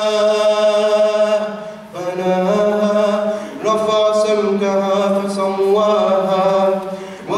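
A man reciting the Quran solo into a microphone in a slow, melodic style, drawing out long held notes in three phrases with short breaks between.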